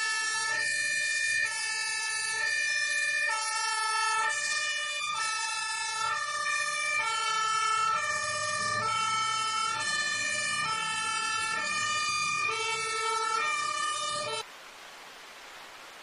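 Fire engine's two-tone siren sounding, alternating steadily between a high and a low note, with a faint low rumble underneath. It cuts off abruptly near the end, giving way to a steady hiss.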